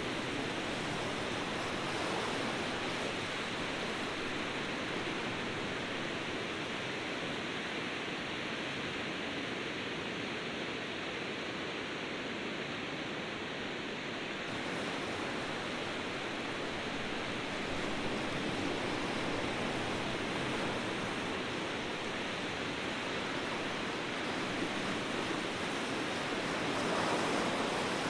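Ocean surf washing steadily, an even rushing wash that swells and eases gently, with a slightly louder surge near the end.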